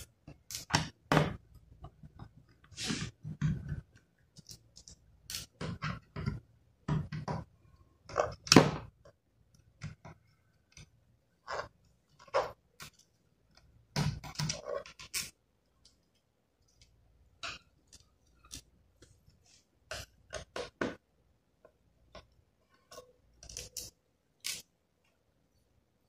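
A small screwdriver working screws out of a laptop's plastic bottom cover, with scattered clicks, scrapes and light taps at an irregular pace as the screws are turned and the case is handled.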